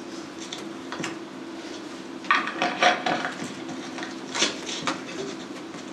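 A drink bottle being handled after a drink: scattered clicks and crinkles of the bottle and its cap, in two clusters about two and a half and four and a half seconds in, over a steady low hum.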